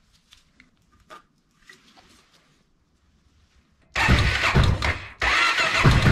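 A few faint clicks, then the Honda XR650L's single-cylinder four-stroke engine starts about four seconds in. It dips briefly about a second later, then picks up again and runs with an even, rapid beat.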